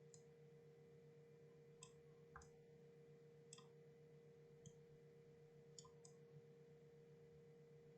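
Near silence with a few faint, scattered clicks from a computer mouse and keyboard, about seven in all, over a steady low electrical hum.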